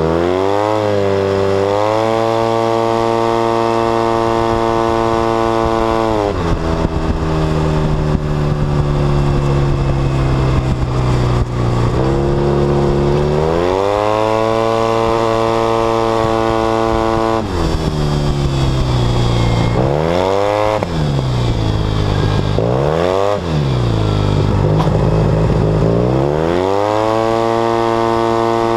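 Yamaha T-Max scooter's parallel-twin engine through a Polini aftermarket exhaust, accelerating hard several times. The revs climb quickly and then hold one steady pitch while speed builds, as its belt-driven automatic transmission does, then drop away when the throttle closes, with two quick dips and rises later on. Wind and road noise run underneath.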